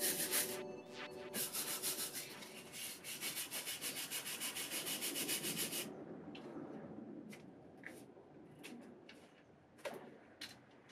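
Wire brush scrubbing the cast-iron jaw of a Record No. 3 vice in rapid, even strokes, pausing briefly about half a second in and stopping about six seconds in. After that, a few scattered light clicks and taps of metal parts being handled.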